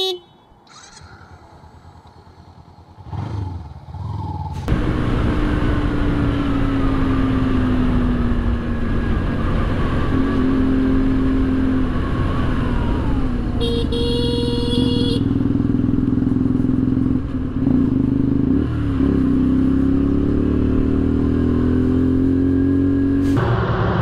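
Motorcycle engine running while riding, its pitch rising and falling with the throttle over steady road and wind noise, after a quieter first few seconds. A high pitched tone sounds for about a second and a half near the middle.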